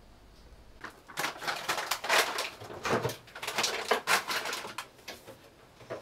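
Irregular bursts of rustling and clicking from hands working at a kitchen counter, starting about a second in.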